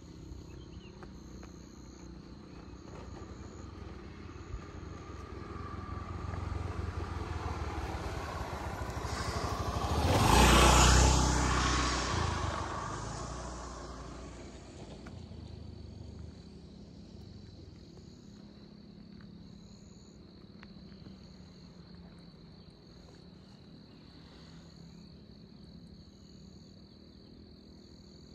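A motor vehicle approaches, passes close by at its loudest about halfway through, and fades away, with insects chirping steadily in the background.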